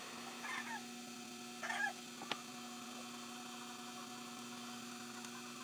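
Steady electrical hum, with two short meow-like calls, one about half a second in and one at about a second and a half, and a single sharp click a little after two seconds.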